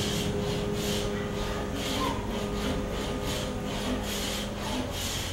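Home-made scratch stock scraped back and forth along the edge of a narrow wooden window sash bar, about three rasping strokes a second, as it cuts the moulding profile into the wood.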